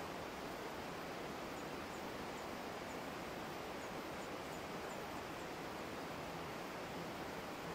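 Steady, even rushing noise with no pitch, with a few faint high ticks between about one and a half and five and a half seconds in.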